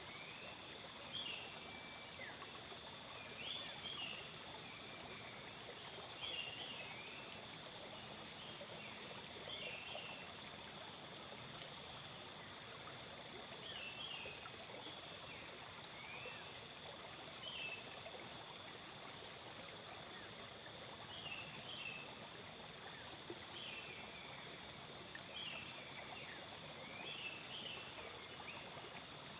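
Insects buzzing in a steady high-pitched drone, with bursts of rapid pulsed insect chirping every few seconds and short bird chirps scattered throughout.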